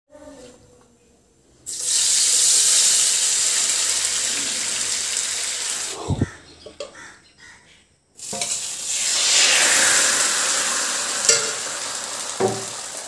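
Loud sizzling of food in a hot pan, in two stretches that each start abruptly, with a low knock between them. In the second stretch it is thin rice batter for appam sizzling and bubbling in a pan over a wood fire.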